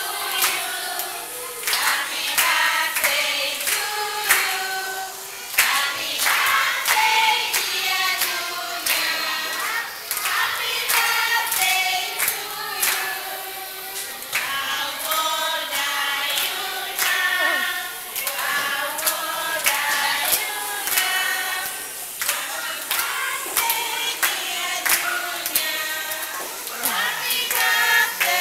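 A group of children and adults singing together, with hand clapping along to the song.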